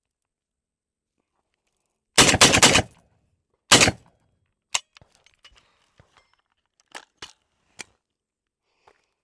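Kalashnikov USA RS12 semi-automatic 12-gauge shotgun firing 3-inch steel shot shells: a quick string of shots about two seconds in, then one more shot about a second later. Scattered light clicks and knocks follow.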